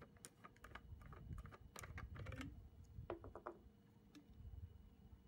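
Faint, irregular light clicks and taps, clustered in the first three and a half seconds with a last one around four seconds, as the brush cutter's engine and parts are handled.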